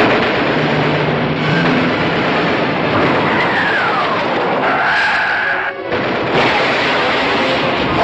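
Film soundtrack of an air battle: jet fighter engines running loud and steady under a dramatic orchestral score, with a whine that falls in pitch about three seconds in.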